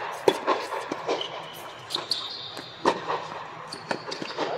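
Tennis rally on an indoor hard court: a string of sharp pops from racket strikes and ball bounces, irregularly spaced, with a few short high squeaks.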